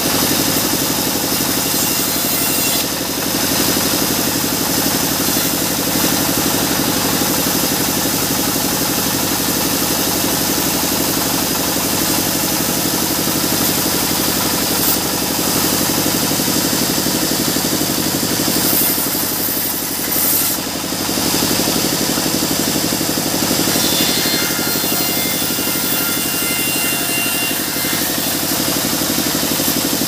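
Band sawmill running steadily as its blade rips mahogany boards: a constant machine drone with a high hiss of cutting. The level dips briefly twice, about three seconds in and about twenty seconds in.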